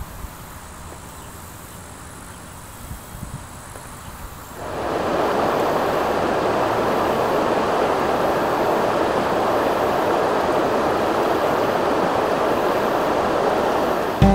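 Faint quiet outdoor ambience. About four and a half seconds in, the steady rush of a fast mountain river flowing over stones cuts in loudly.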